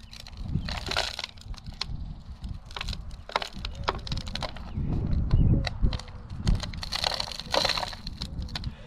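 PVC pipe sleeves being worked by hand, end fitted to end: a run of plastic clicks, creaks and scrapes, with a heavier low thump about five seconds in.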